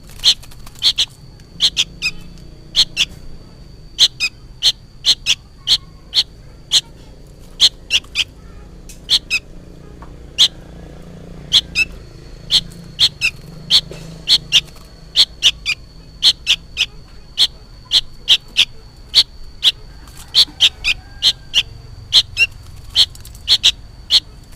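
Young sooty-headed bulbul calling over and over: short, sharp chirps, often in quick pairs, a couple of times a second. The uploader takes these for calls to its parent.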